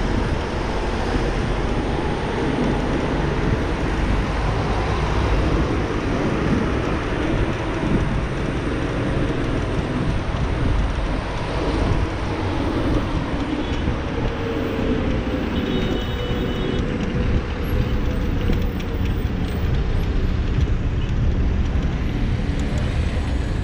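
Wind and road noise from riding an electric scooter through city traffic: a steady, fluttering low rumble on the microphone under the hiss of surrounding cars.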